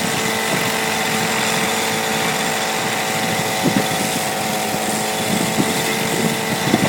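Small unmanned helicopter's engine and rotor running steadily in flight, an even drone over a rushing hiss of strong wind, with a few short gusts buffeting in the second half.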